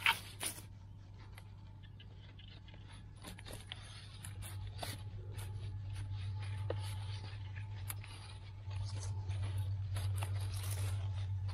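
A bare hand scraping and scooping dry soil and crackling dry grass and twigs while digging into a frog burrow: a run of small scrapes and crunches. Underneath runs a steady low rumble that grows louder about four seconds in and again past the eight-second mark.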